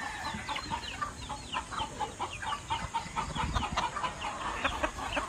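A yard full of tethered gamecocks clucking and calling, many short calls overlapping one another.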